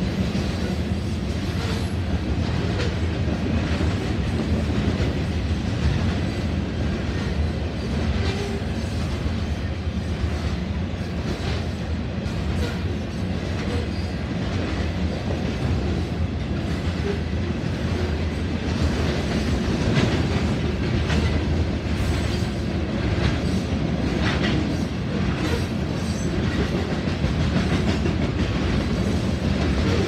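Covered grain hopper cars of a freight train rolling past at a road crossing: a steady rumble with wheels clacking. A few sharper clacks come about two-thirds of the way through.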